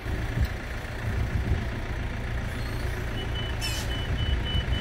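A vehicle engine runs steadily while a reversing alarm starts beeping fast and evenly about three seconds in. A thud comes early on and a short hiss comes near the middle of the beeping.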